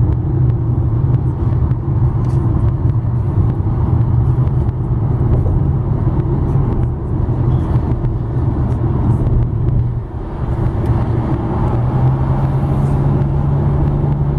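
Steady road and engine noise heard from inside a car's cabin at highway speed, with a strong low drone that briefly dips about ten seconds in and then returns.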